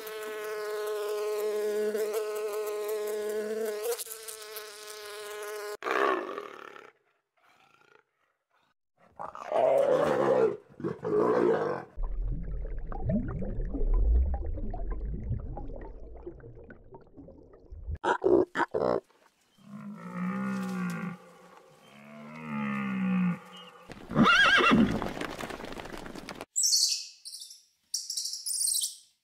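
A run of different animal sounds cut one after another. A bee's steady buzz fills the first six seconds, followed by assorted animal cries and calls, a low rumble in the middle and high squeaks near the end.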